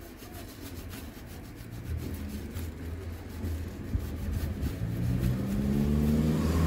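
A motor vehicle's engine running over a low rumble, growing louder and rising slightly in pitch through the second half.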